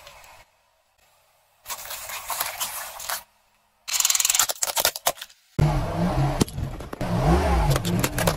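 Car tyre rolling over and crushing objects, heard as a string of short crunching and crackling bursts separated by abrupt cuts. From about two-thirds of the way through, a car engine's low hum runs under sharp cracks and clicks as the tyre presses onto a large eggshell.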